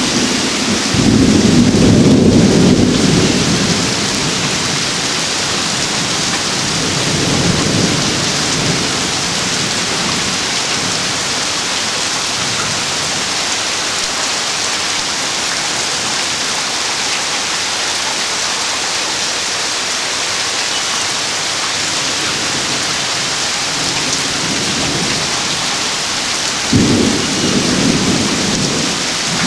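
Thunderstorm: steady rain hiss with thunder, a loud rumble about a second in, a weaker roll around eight seconds, and a sudden clap that rumbles on near the end.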